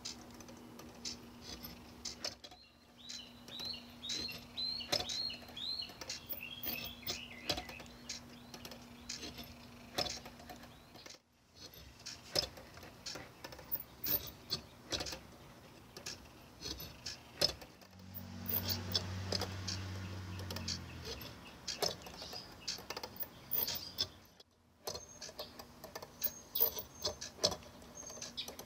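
Marble-run automaton running: a steady stream of light clicks and taps from its mechanism and marbles over a faint steady hum from its gear motor. A run of short high squeaks comes about three to six seconds in, and a louder low hum for about three seconds past the middle.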